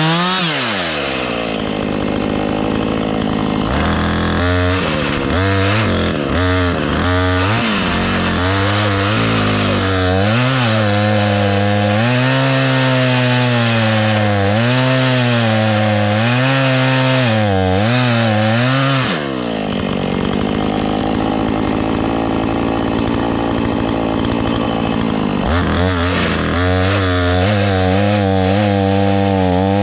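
Husqvarna chainsaw cutting through a dead elm trunk, the engine's pitch sagging and recovering under load as the cut goes on. The pitch falls away about two-thirds of the way through and rises back to full revs near the end. The chain is dull.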